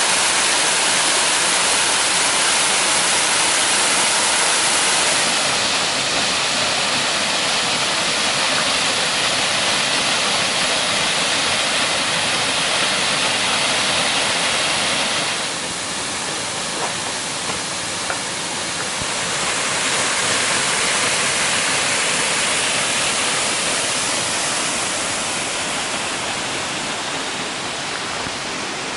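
Waterfall rushing in a steady, dense hiss of falling water. It drops a little for a few seconds past the middle, then comes back, and is slightly softer near the end.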